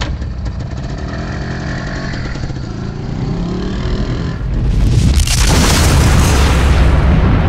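Logo-intro sound effects: a motorcycle engine running with a low steady hum, its pitch shifting slightly. About four and a half seconds in, a loud rushing burst like a fire flare-up takes over and holds.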